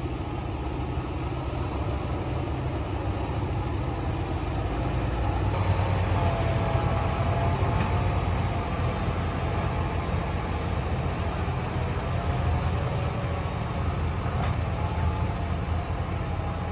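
John Deere 7430 tractor's six-cylinder diesel engine running steadily, with a faint whine that wavers in pitch about six seconds in.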